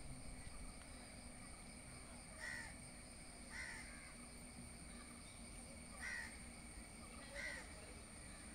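Crow cawing: four short caws a second or more apart, faint against a quiet background with a low steady hum.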